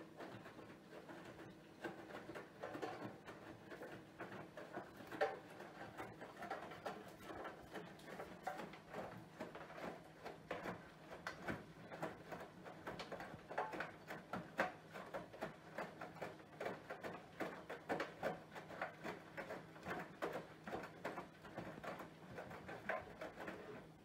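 Bosch Serie 4 VarioPerfect washing machine with EcoSilence Drive washing a load: water and laundry sloshing and pattering irregularly in the turning drum over a faint steady motor hum.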